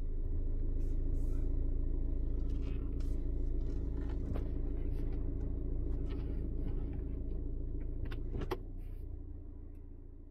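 Audi Q3 TFSI engine idling, heard from inside the cabin as a steady low rumble, with a few faint clicks; it fades out near the end.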